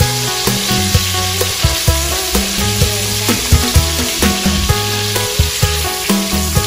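Fish steaks frying in hot oil in a nonstick pot, a steady sizzle with frequent sharp clicks. Background music with held low notes plays under it.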